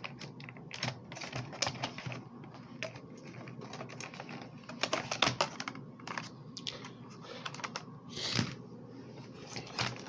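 Plastic clips of an instrument cluster's front lens piece being unsnapped while the plastic parts are handled: irregular light clicks and taps, with a few louder clacks about five seconds and eight seconds in.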